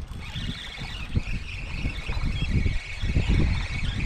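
Wind buffeting the microphone in irregular low gusts, with a steady high-pitched whine running underneath.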